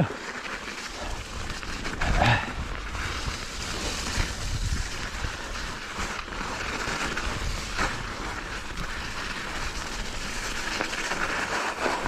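Mountain bike riding downhill over snow and mud: tyres rolling and the bike rattling over the trail, with wind rumbling on the microphone and a louder bump about two seconds in.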